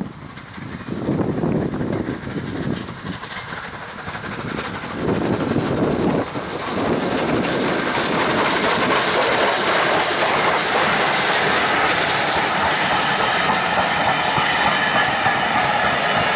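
Three-cylinder rebuilt Bulleid West Country class Pacific steam locomotive 34027 Taw Valley working a train: its exhaust comes in surges as it approaches. From about seven seconds in it passes close by, and the coaches roll past with steady wheel noise and clickety-clack over the rail joints.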